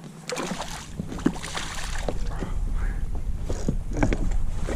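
A hooked redfish splashing at the surface beside a kayak, with irregular knocks and rattles of gear against the plastic hull. A low rumble comes in near the start and builds under them.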